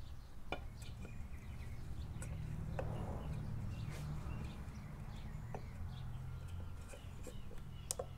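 Faint scattered clicks and light scrapes of hands working a motorcycle valve cover against the wiring and a sensor, over a low steady hum.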